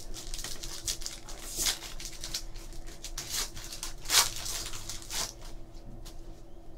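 Foil wrapper of a Topps Chrome trading-card pack being torn open and crinkled by hand: a string of short rips and crinkles, the loudest a little past four seconds in.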